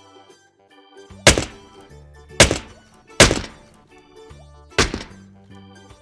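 Four loud thunk sound effects, the big eggs being dropped onto the ground one after another, with the last one after a longer gap. Light keyboard background music plays underneath.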